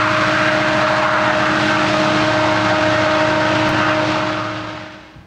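Empty BNSF coal train rolling past out of sight: a steady rumble of wheels on rail with a steady droning hum, fading out near the end.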